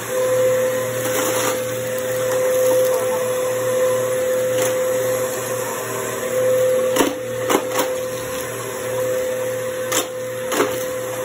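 Bissell bagless upright vacuum cleaner running steadily as it is pushed over a rug, its motor giving a constant whine. A few sharp clicks come in the second half.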